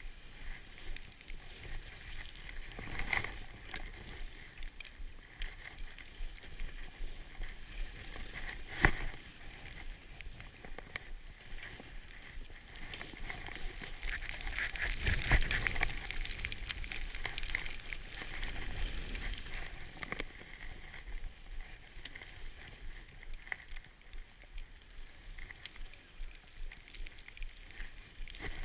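Skis sliding and scraping over snow during a run, with a louder stretch of scraping about halfway through.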